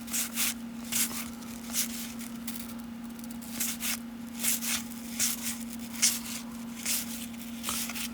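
Baseball trading cards sliding off one another as a stack is flipped through, a short papery swish every half second or so, over a steady low electrical hum.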